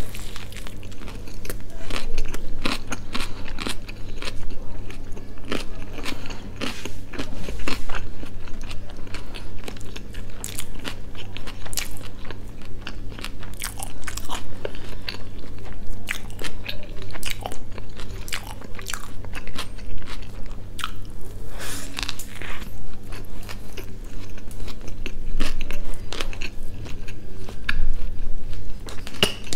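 Close-miked biting and chewing of a burger, with many short crunching clicks throughout as the bun and filling are bitten and chewed. A low steady hum sits underneath.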